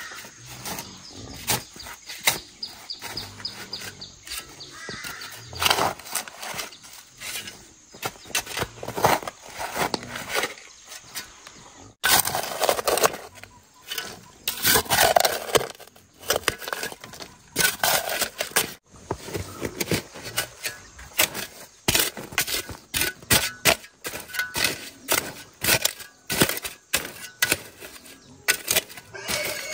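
Metal shovel digging into dry clay soil: repeated scrapes and thuds as the blade bites in and clods and ash are lifted and tossed.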